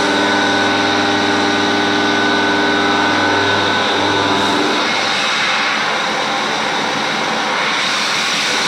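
CNC milling machine high-speed milling stainless steel at a feed of 5000 mm/min: a steady, loud whine of spindle and cutter made of many tones over cutting hiss. The tone pattern shifts about halfway through.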